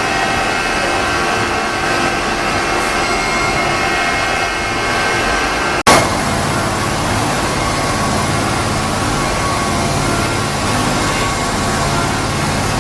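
Steady mechanical running noise with several high steady whines. About six seconds in it breaks off abruptly for an instant, and after that a deeper rumble is stronger.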